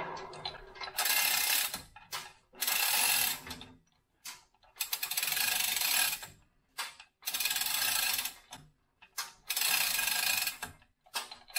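Chain hoist lowering a Bridgeport mill table on a lifting strap, running in about five spurts of a second or so each with short pauses between.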